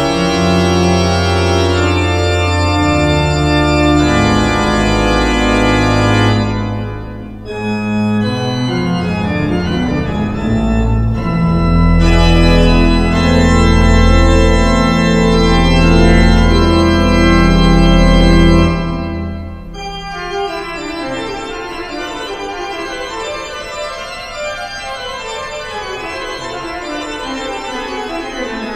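Pipe organ playing sustained full chords over deep pedal bass notes. About two-thirds of the way through, the loud full sound drops away to a quieter, lighter passage without the deep bass.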